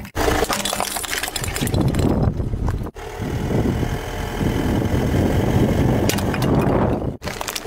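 A car engine running as the car creeps slowly over asphalt, with crackling and crunching of small toys breaking under the tyre. The sound cuts off abruptly twice.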